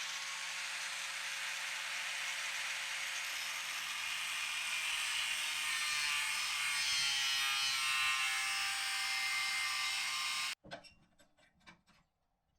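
A power tool running steadily on metal, cutting off abruptly near the end, followed by a few light clicks.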